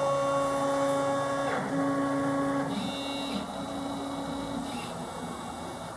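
ST Robotics R12 robot arm's stepper motors whining as the arm runs its calibration, driving its joints in turn. The steady whine jumps in pitch several times as one movement ends and the next begins.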